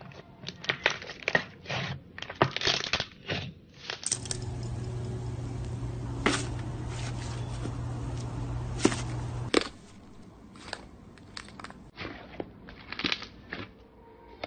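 Slime being squeezed and poked by hand, giving a run of crackling pops and clicks. For about five seconds from about four seconds in, a steadier stretch with a low hum underneath and only a few sharp pops takes over, then the crackling clicks return.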